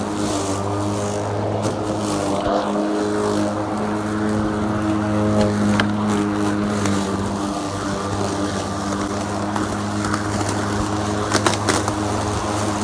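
Greenworks Pro 80V cordless brushless push mower running steadily with an even hum, with a few sharp ticks near the end.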